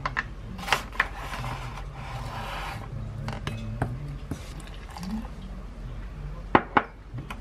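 Wooden spoon scraping and tapping against a glass mixing bowl as whole wheat flour is spooned in, with a soft hiss of the flour and scattered sharp knocks, the two loudest close together near the end.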